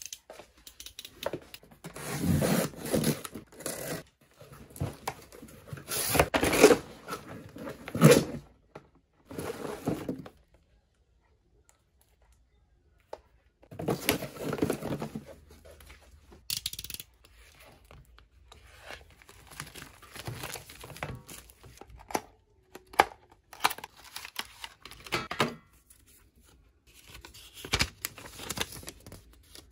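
Cardboard shipping box being torn open, with loud tearing bursts of tape and cardboard, thunks of the flaps, and, after a short pause, more rustling of paper and packaging as the contents are taken out. Quieter scattered handling noises follow, including a paper instruction leaflet being unfolded.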